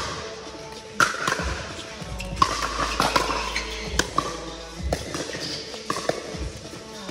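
Pickleball rally: paddles striking a hard plastic ball with sharp pops, roughly once a second, echoing in a large indoor hall, with shoe scuffs on the court between hits.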